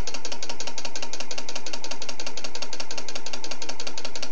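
Hollow rotor of an experimental Bedini-style pulse motor coasting on its shaft bearings, making a fast, even ticking rattle of about a dozen clicks a second. The owner puts the noise down to dry bearings that need more oil.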